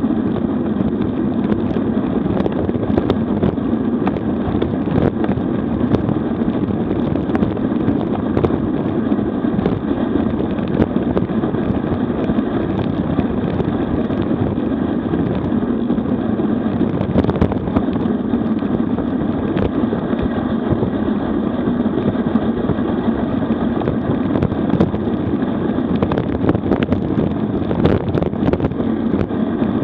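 Steady rush of wind buffeting a bicycle-mounted camera's microphone at high descending speed, mixed with the hum of road-bike tyres on rough asphalt and scattered faint ticks and rattles.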